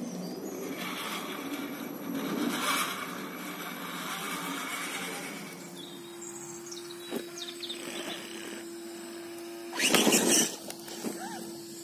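Radio-controlled rock crawlers climbing rock, with their electric motors and drivetrains whirring and their tyres scraping and grinding over stone. About ten seconds in comes a louder scrape lasting half a second, as a crawler noses its front wheels down into a gap.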